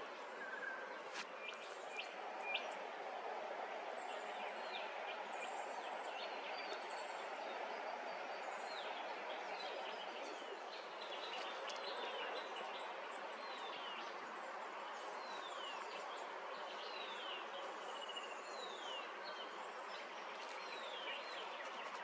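Wild birds calling in the bush: a run of short, quick falling chirps, about one a second through the second half, over a steady outdoor hiss.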